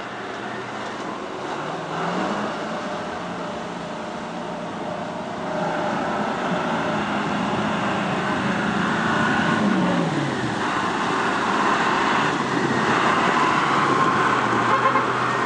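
A heavy vehicle's engine running under load, its pitch rising about two seconds in and dropping again near ten seconds, over a steady rush of noise.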